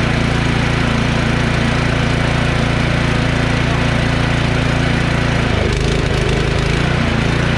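Snow blower's four-stroke engine running steadily at low throttle just after starting. About five and a half seconds in, its note dips and wavers briefly, then settles again.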